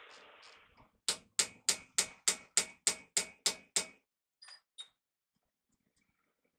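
Hammer blows on metal at a truck wheel hub: about ten quick, evenly spaced strikes at roughly four a second, each with a short metallic ring, followed by two faint taps.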